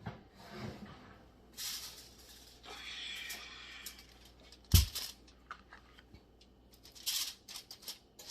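Kitchen handling sounds as a casserole dish is taken out of the oven: rustling and scraping, with one sharp loud knock a little before five seconds in.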